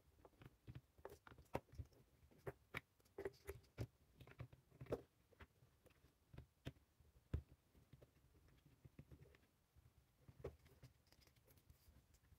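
Faint, scattered clicks and taps of plastic and wire being handled as the wiring is tucked into an angle grinder's plastic housing, busiest in the first five seconds and sparser after.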